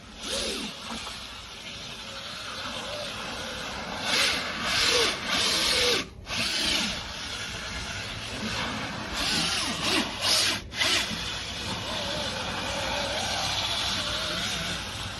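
Power drill spinning a scrub-brush attachment against car seat upholstery, with louder stretches of scrubbing twice and short breaks between them.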